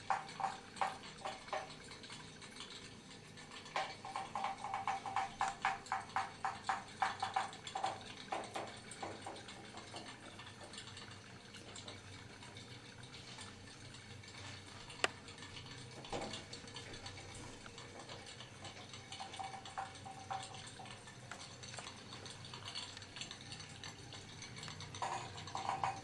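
Tin pop-pop toy boat's steam engine putting: rapid metallic ticks that come and go in spells, fading in the middle and picking up again near the end. A single sharp click about halfway through.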